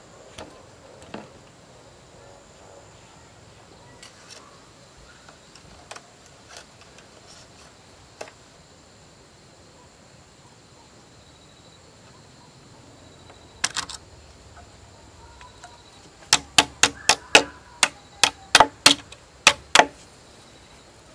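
Work on a bamboo frame being lashed with wire: scattered single knocks, a short clatter, then about a dozen sharp quick taps, roughly three a second, near the end. A faint steady high drone runs underneath.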